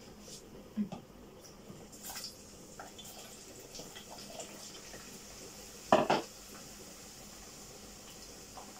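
Cooking pot and metal utensils clattering: scattered light clinks and knocks, with a louder double knock about six seconds in.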